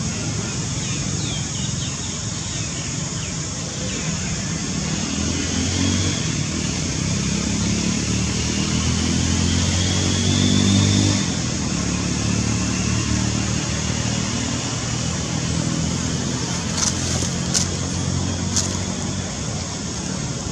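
A motor vehicle's engine running steadily over outdoor hiss, growing louder to a peak about halfway through and then easing off. A few short clicks come near the end.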